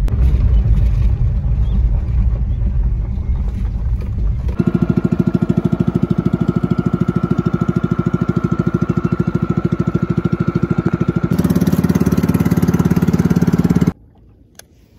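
Low rumble of a vehicle driving, heard from inside the cab. About four seconds in it gives way to the steady, fast putter of a small wooden boat's engine running under way. The engine sound cuts off suddenly near the end.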